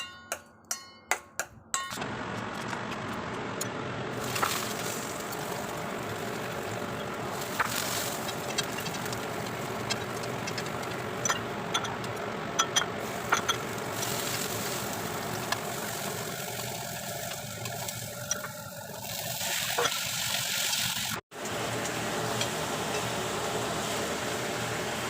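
A few sharp clinks of a utensil against cookware, then a steady sizzling hiss of food cooking in a hot pan, with scattered small pops and clicks.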